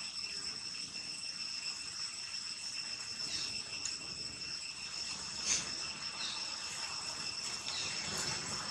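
A steady, high-pitched insect drone with a few short, high chirps over it, and one brief click midway.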